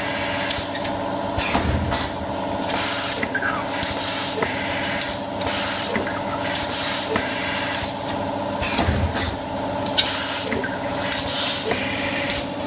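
Automatic rule creasing machine running with a steady hum, with a short hiss and click about once a second as its pneumatic cylinder strokes while it creases and notches steel cutting rule.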